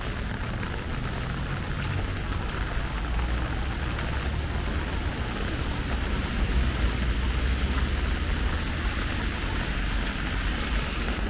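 Steady rain falling, an even hiss, with a low rumble underneath that grows louder about six to eight seconds in.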